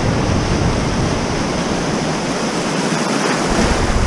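Small waves washing and breaking in shallow surf, with wind buffeting the microphone; the deep wind rumble eases off for a second or so in the middle, then returns.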